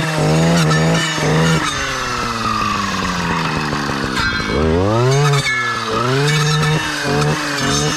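Stihl clearing saw's two-stroke engine revved hard while its blade clears saplings. It holds high revs, sinks slowly for a few seconds, climbs back, then rises and falls in several short surges.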